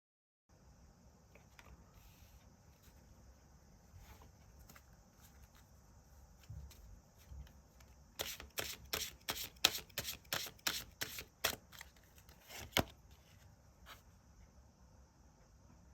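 Tarot cards being shuffled by hand: a quick run of crisp card snaps, about three a second, for a few seconds past the middle, then one more sharp snap, over a faint hiss.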